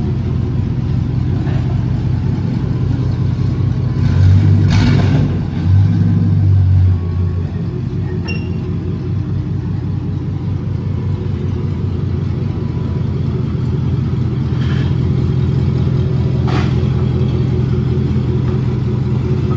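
GMC truck engine running with a deep, low exhaust note, its exhaust leak just repaired; it is revved briefly twice, about four and six seconds in, then settles back to a steady idle.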